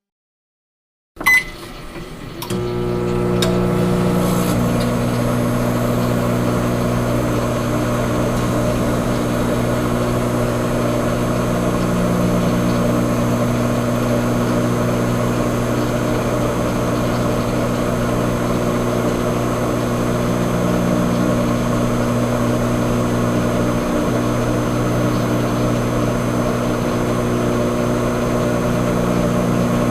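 A click, then a steady electrical machine hum that builds over a couple of seconds and holds, swelling faintly about every eight or nine seconds.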